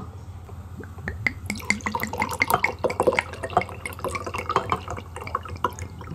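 Prosecco poured from the bottle into glass champagne flutes, a run of quick irregular splashes and pops as the sparkling wine fills and foams, starting about a second in.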